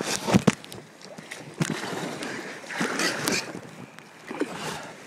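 A kayak on the water: splashing and sloshing, broken by several irregular knocks, typical of paddle strokes and the paddle striking the boat.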